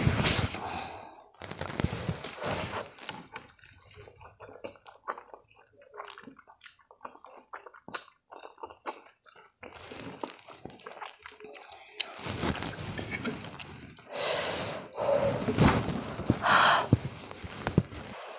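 Close-miked eating of spicy instant noodles: wet chewing and lip-smacking clicks, broken by longer noisy slurping sounds at the start, around two seconds in, and again through the last six seconds.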